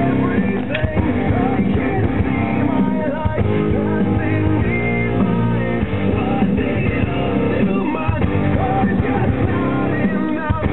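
Rock song with guitar and a singing voice, playing steadily.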